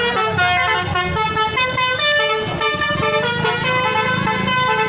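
Basuri (telolet) musical bus air horns playing melodies, several horn notes sounding together and changing pitch every fraction of a second.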